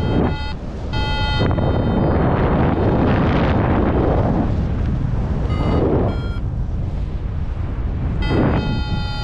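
Wind rushing over the microphone in paraglider flight, with an XC Tracer flight variometer sounding electronic beeps: short tones early on and a higher pair around the middle, then one long steady tone near the end.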